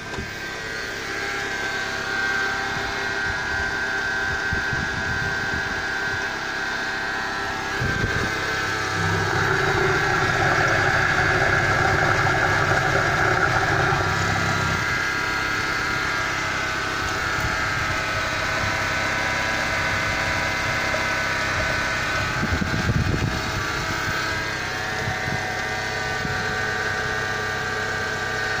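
Opel 1.6-litre X16SZR eight-valve four-cylinder petrol engine idling steadily, getting louder for a few seconds about nine seconds in.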